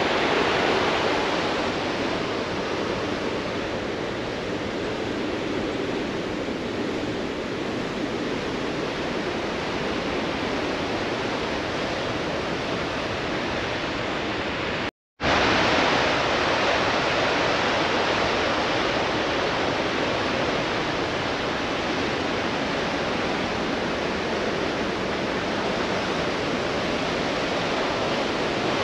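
Steady rushing roar of the fast white water of the Androscoggin River's Great Falls, cutting out for a moment about halfway through.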